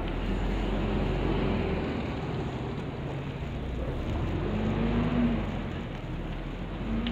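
Street traffic: a steady low rumble of vehicles on the road, with an engine hum swelling about five seconds in.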